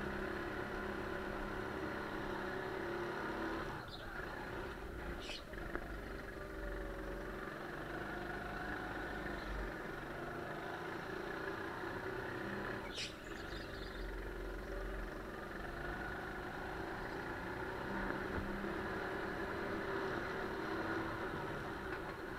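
Single-cylinder 200cc Honda four-stroke engine of a Sodi GT5R rental kart running under the driver on a lap, its pitch rising and falling with throttle through the corners. A few brief sharp noises cut through, about four, five and thirteen seconds in.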